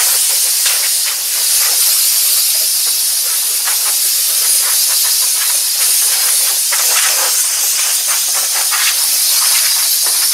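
Compressed-air blow gun on an air hose blasting a jet of air over an engine bay to blow off dust. It makes a loud, steady hiss with frequent short flutters as the nozzle moves across the parts.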